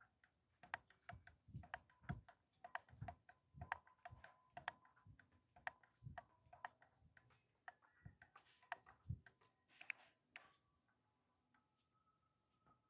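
Faint footsteps on a hard floor, two to three short knocks a second, thinning out about three-quarters of the way through.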